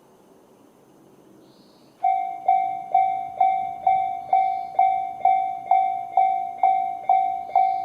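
Japanese railway level crossing alarm starting up about two seconds in: the Tobu-type 'sound C' electronic bell, a ringing tone struck about twice a second, each strike decaying, warning of an approaching train.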